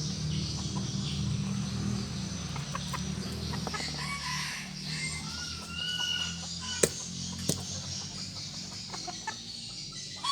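Chickens clucking, with a few short higher calls in the middle. About two-thirds of the way through there are two sharp knocks, a bit under a second apart.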